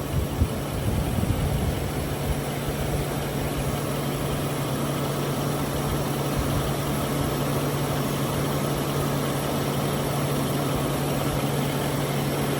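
Mercury Grand Marquis V8 idling steadily with the air conditioning running at max, a constant low hum while refrigerant is charged into the system.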